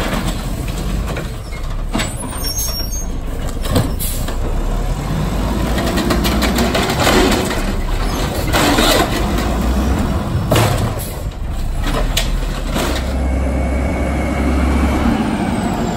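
Automated side-loader garbage truck's diesel engine running as it moves between stops, with air brakes hissing several times.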